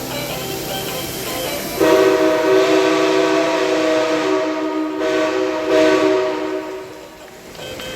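A train horn sounding a held chord of several steady tones, starting sharply about two seconds in, holding for about five seconds and then fading.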